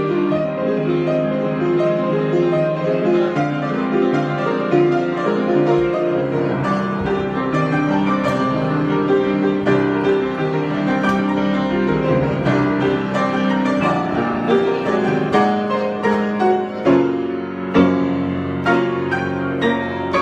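Solo piano improvisation: chords and melody played continuously, with notes held and overlapping. In the last few seconds the playing breaks into separate struck notes and chords.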